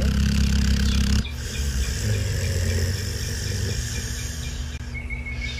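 A sleeping dog snoring deeply in long breaths, the loudest snore in about the first second and softer ones after.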